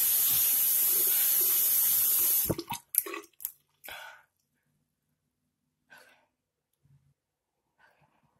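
A loud steady hiss stops abruptly about two and a half seconds in. A few short clattering knocks follow, then only faint ticks.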